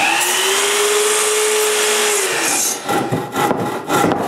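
Festool Kapex sliding mitre saw running and cutting through a wooden board, its motor whine winding down a little over two seconds in; then a run of irregular scraping and knocking sounds.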